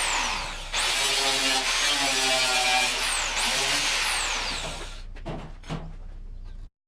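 Power tool running loud under load, with short breaks where the motor speed dips and picks up again. It stops about five seconds in, and a few knocks follow.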